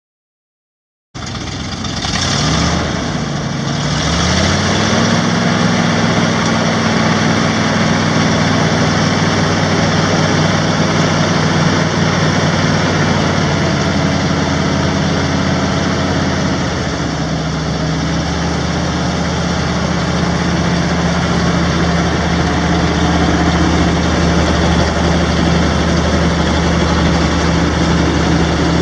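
Chevrolet 366 cubic-inch V8 gas engine of a 1974 Ford 750 grain truck starting about a second in. Its speed climbs over the next few seconds, it runs at a steady fast idle, then it drops to a slower steady idle a little past halfway.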